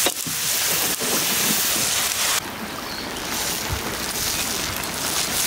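Spiced potato curry sizzling and bubbling in a large flat metal pan over a wood fire, a steady hiss with a few faint clicks, just after the water for the gravy has gone in. The hiss softens a little about two and a half seconds in.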